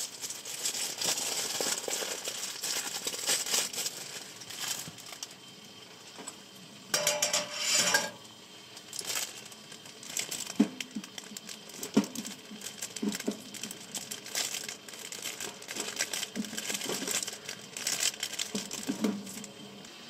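Plastic packaging crinkling and rustling as it is handled, with a louder stretch about seven seconds in. A few short clinks of metal cookware come in the second half.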